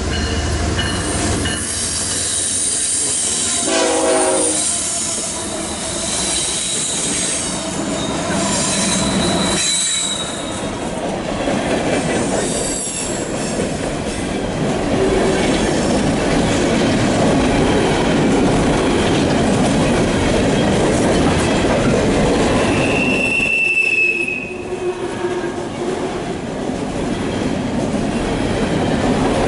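Empty CSX coal train passing close by, its steel hopper cars rolling with a steady rumble and clatter of wheels over the rails. High wheel squeals ring out over the first several seconds and again, sharply, about three-quarters of the way through. A brief pitched note sounds about four seconds in.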